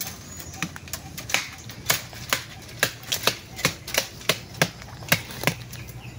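A run of sharp snaps and cracks, irregular, about two or three a second, from dry bamboo stems and litter being broken or cut at the base of a bamboo clump while getting at a bamboo shoot.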